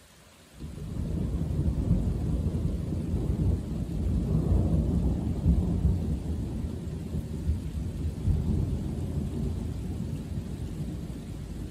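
Thunder rumbling: it breaks in about half a second in and rolls on, swelling around the middle and easing slowly toward the end.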